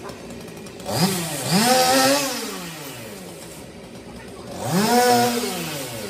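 Gasoline chainsaw revving up twice. The engine pitch climbs to high speed, holds briefly and drops back, the first time about a second in and again near five seconds, over a steady idle between.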